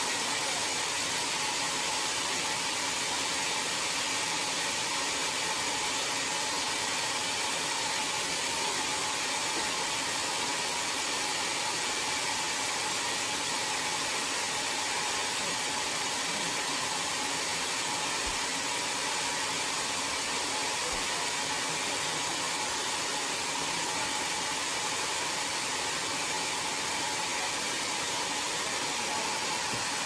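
Sawmill band saw running and cutting lengthwise through a large log: a steady, unbroken hiss with a faint whine.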